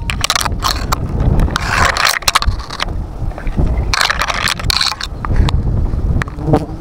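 Wind rumbling on a phone's microphone, with irregular crunching knocks and rustles from the phone being handled against the tree and comb.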